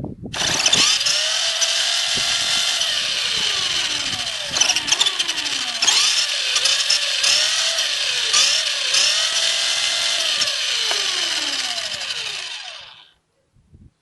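RC car's electric motor and drivetrain, powered by 128 9V batteries in parallel, running with a high-pitched whine whose pitch rises and falls again and again as the throttle is worked. It starts about half a second in and cuts out about a second before the end.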